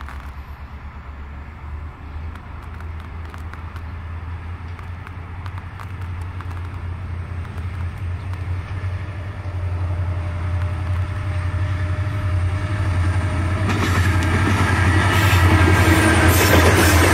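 Four-locomotive diesel freight train approaching and passing close by: a low engine rumble grows steadily louder, rising sharply about three-quarters of the way in as the lead locomotives come alongside.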